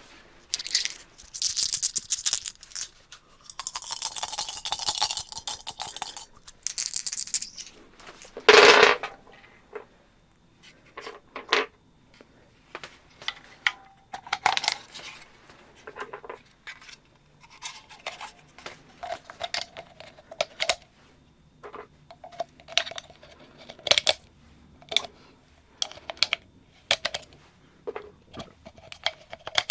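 H&K USP40 pistol magazine being handled: sliding and scraping for the first several seconds, one loud clack about nine seconds in, then a long run of small metallic clicks and taps.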